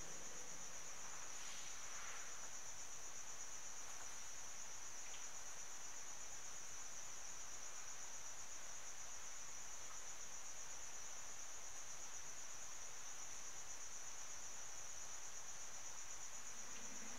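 Crickets chirring: one unbroken, high-pitched trill that holds steady throughout.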